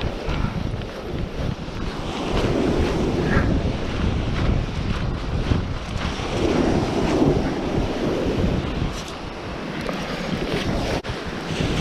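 Strong wind buffeting the microphone over waves breaking on the shore, swelling and easing a few times.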